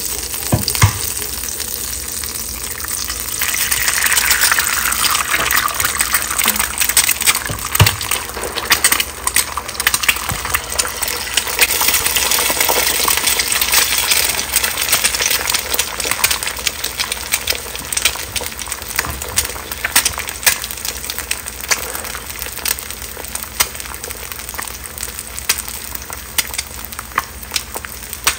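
Eggs frying in foaming butter in a carbon steel pan: steady sizzling with many crackling pops, which swells about three seconds in as egg goes into the hot fat, then slowly eases. Two short knocks, about a second in and about eight seconds in.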